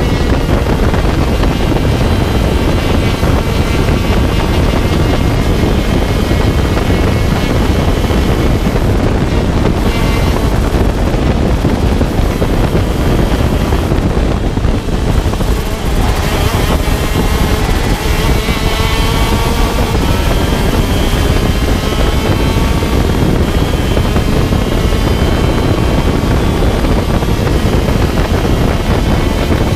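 125cc two-stroke shifter kart engine at racing speed, revving up and down through the gears, with the note dropping away about midway and then climbing again. Heavy wind buffeting on the microphone runs under it.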